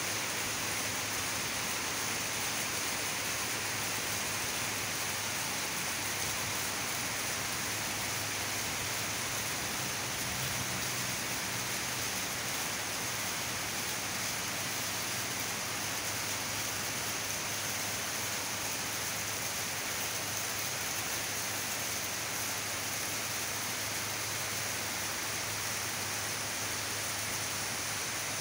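Heavy tropical rain falling steadily on dense vegetation, an even hiss that does not let up.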